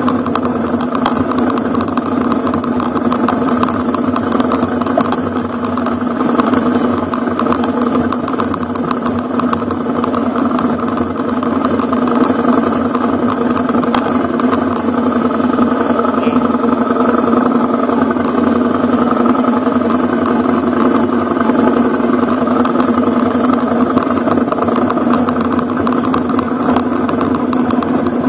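Ducati Hypermotard's L-twin engine running at a steady pace while the bike rides along a gravel forest track, with many small clicks and knocks throughout.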